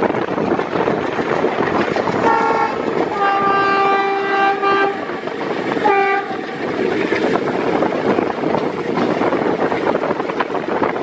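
Train horn sounding three times, short, long, short, over the steady running noise and rattle of a moving train.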